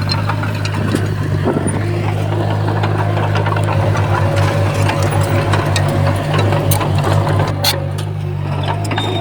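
Komatsu D20P bulldozer's diesel engine running steadily under load, its low note pulsing unevenly from about four to seven and a half seconds in, with scattered metallic clanks and rattles.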